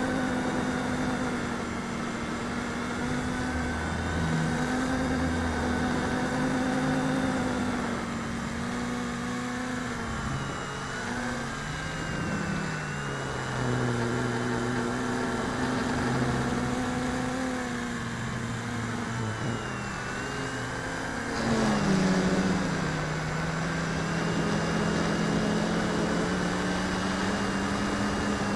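RC Logger Xtreme quadcopter's electric motors and cracked 138 mm propellers whining in flight, heard from its onboard camera. Several tones slide down and back up as the throttle changes, with a sudden louder surge about three quarters of the way through.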